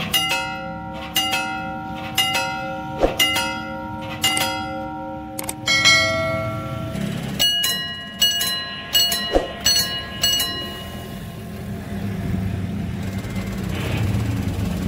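Railway level-crossing warning bells ringing. First a bell is struck about once a second, each strike ringing on. After a short gap a bell with a different tone is struck faster, about two strikes a second, and fades out a few seconds before the end.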